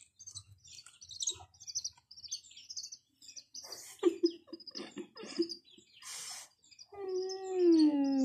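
Baby chick peeping over and over in short high chirps, with a few soft scuffles in the middle; about seven seconds in, a person's long drawn-out exclamation starts and is the loudest sound.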